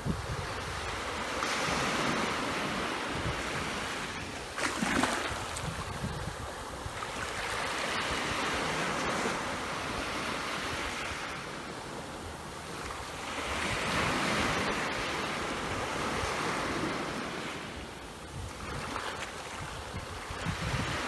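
Sea waves breaking on the beach, the wash swelling and fading every few seconds, with wind buffeting the microphone.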